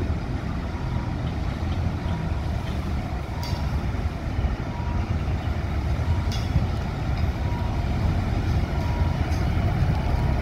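Diesel engine of a small shunting locomotive (SRT HAS class) running with a steady low rumble as it moves slowly along the track with a coach in tow. A faint high tone comes and goes, and there are a couple of light clicks.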